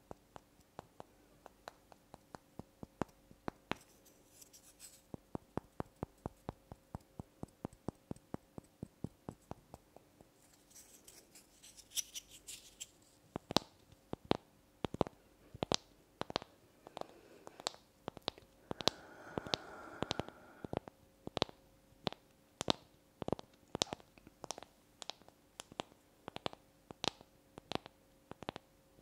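Long fingernails tapping on small light wooden blocks close to the microphone: crisp clicks, several a second in the first half, then slower, more spaced taps about two a second. A few brief scratching sounds of nails dragged over the wood come in between.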